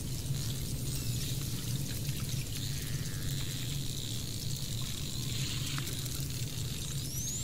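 Water rushing and trickling over a steady low hum. Near the end comes a high whistle rising in pitch, the start of the cetacean whistles.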